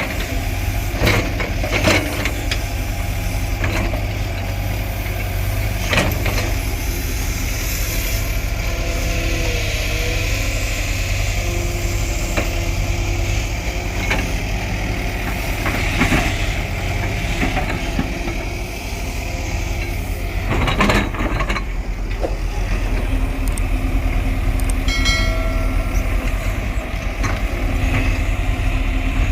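Heavy diesel earthmoving machine engine running steadily with a deep rumble, broken by a few sharp metallic knocks and clanks.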